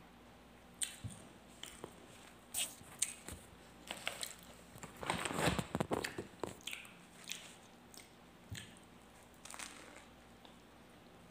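Close-up eating sounds: a person biting and chewing a soft bread roll, with scattered small mouth clicks and smacks. A denser burst of rustling handling noise comes about five to six and a half seconds in.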